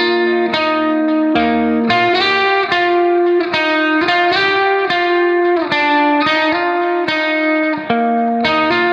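Background music: a melody of plucked notes in a steady rhythm.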